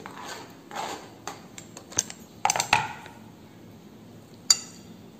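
Kitchen knife tapping and scraping on a cutting board and bowl as cut corn kernels are pushed off into the bowl: a run of light clicks and taps, bunched about two and a half seconds in, with one sharp click, the loudest, near the end.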